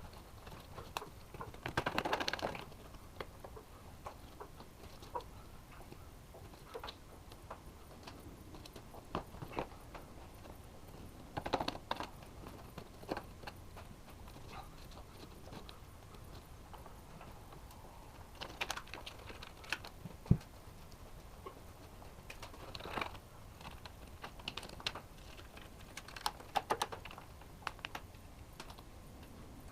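Hand tool scraping and picking at old, dry windshield sealant around the glass: scattered clicks, taps and short scrapes at irregular intervals, with brief pauses between.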